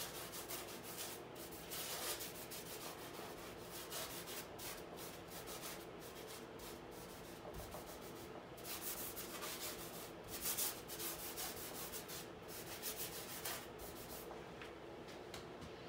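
Bristle paintbrush strokes scrubbing thick paint across a stretched canvas: an irregular run of short scratchy strokes with a short pause near the end.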